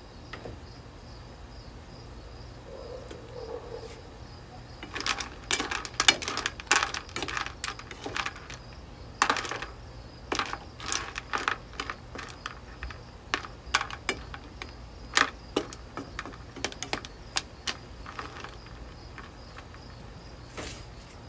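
A plastic spatula scraping and knocking in a nonstick wok as seafood with shells is stirred in a boiling beer sauce: irregular clicks and clatters, with a few louder knocks.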